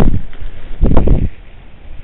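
Steady hiss of pouring rain picked up by a CCTV camera's microphone, with two loud low rumbles about a second apart.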